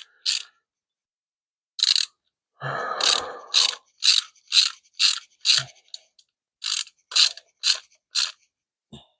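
Hand ratchet wrench clicking in short strokes, about two a second, as nuts are run down onto bolts. There is a longer scrape about three seconds in.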